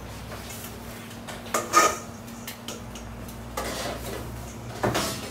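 Metal kitchen utensils and pans clattering and knocking in three short bouts, the loudest a little under two seconds in, over a steady low hum.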